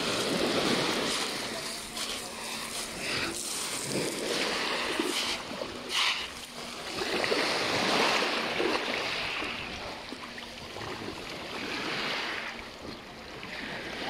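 Small waves washing on a pebble shore, the wash swelling and fading several times, with splashing from feet wading into shallow sea water and a few short sharp splashes near the middle.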